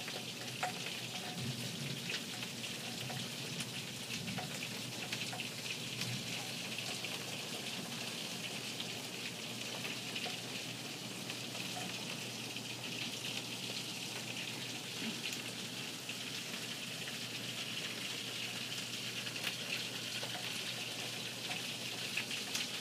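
Heavy rain pouring down: a steady hiss of rainfall dotted with many small drop ticks.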